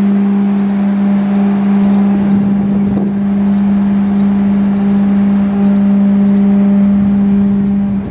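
Rear-loader garbage truck's hydraulic packer running its compaction cycle: a loud, steady whine from the hydraulic pump and engine as the packing panel sweeps through the hopper.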